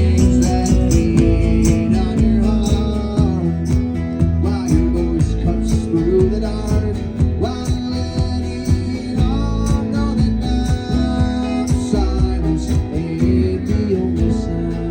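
Live country-folk band playing an instrumental passage, with guitar to the fore over bass and percussion.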